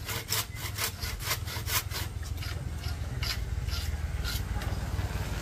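Handsaw cutting through split bamboo slats in quick back-and-forth strokes, about three or four a second, thinning out to a few spaced strokes after about two seconds.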